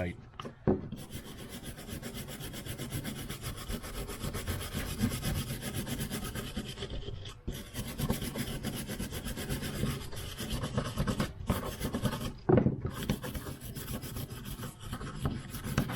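Steel wire brush scrubbing rusty, corroded steel hand pruning shears in fast back-and-forth strokes, with a few short pauses and a sharp knock about three-quarters of the way through.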